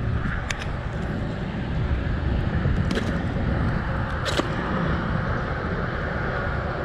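Wind buffeting the microphone as a steady low rumble, with three brief clicks, the sharpest about four and a half seconds in.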